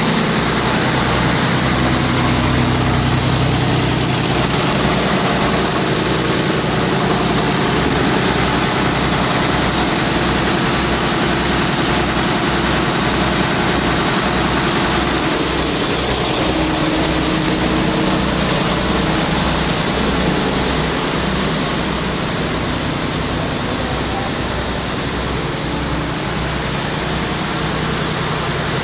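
Diesel engine of a Wirtgen 1000C cold milling machine running steadily, with a low throbbing pulse under a constant hiss.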